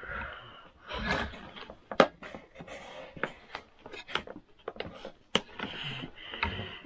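Cardboard toy packaging being handled and cut with scissors: rustling and scraping, with irregular sharp clicks and snips, the sharpest about two seconds in and again past five seconds.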